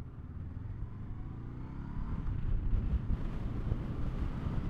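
Honda SCL500 parallel-twin motorcycle engine accelerating, its pitch rising for about two seconds, then wind rumble on the microphone growing louder as speed builds.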